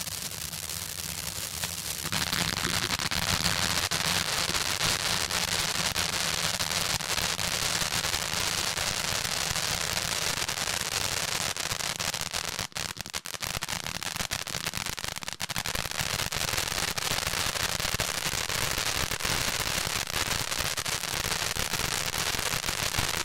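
Cutting Edge 'Watching You' fountain firework burning: a continuous hissing spray of sparks packed with dense crackling, which grows louder about two seconds in.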